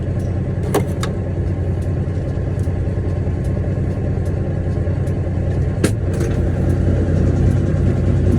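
International 9900 semi truck's diesel engine running steadily, heard from inside the cab, with a few sharp clicks about a second in and again near six seconds.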